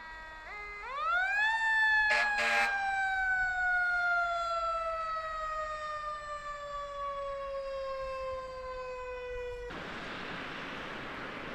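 Emergency-vehicle mechanical siren winding up quickly, then coasting slowly down in pitch for about eight seconds before cutting off suddenly. Two short, sharp bursts of noise come about two seconds in, and a steady rushing noise follows the cut-off.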